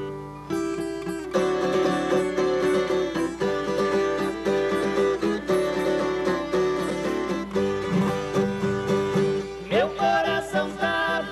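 Viola caipira and acoustic guitar playing a lively plucked instrumental introduction in cana-verde rhythm, with a steady strummed beat and picked melody notes.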